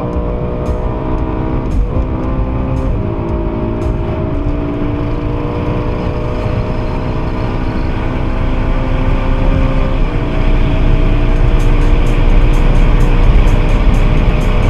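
BMW M3 E92's V8 engine pulling at speed, heard from inside the cabin over road and wind noise. Its pitch shifts in steps a few times and the engine grows louder in the last few seconds.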